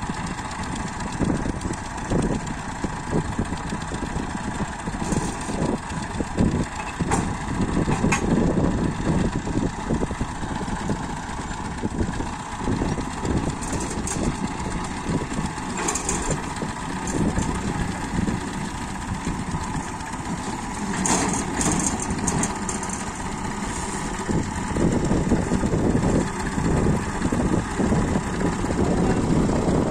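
Massey Ferguson 240 tractor's three-cylinder diesel engine running steadily, growing louder in the last few seconds as it pulls the hitched wheat thresher up the bank, with a few short knocks along the way.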